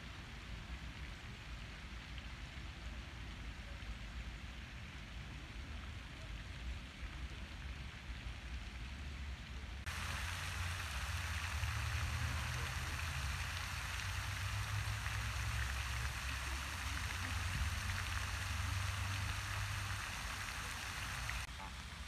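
Steady outdoor background hiss with no distinct calls. About ten seconds in it steps up louder with a low rumble beneath, and it drops back near the end.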